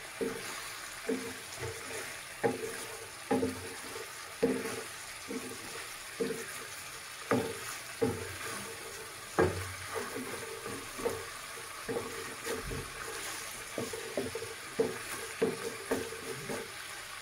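Spatula stirring and scraping chicken drumsticks in thick masala gravy in a pan, knocking against the pan irregularly about once or twice a second over a low sizzle. The masala has been cooked down until the oil separates, the final kosha stage.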